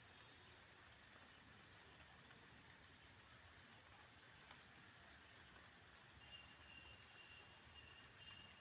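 Near silence: faint outdoor background hiss with a few faint ticks, and a faint high thin tone in broken stretches near the end.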